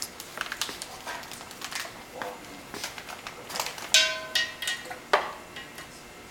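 Handling noises: a thin plastic bag crinkling and light clicks. About four seconds in, a short ringing clink as the siphon's racking cane is set into the mouth of the glass carboy, then a sharp knock about a second later.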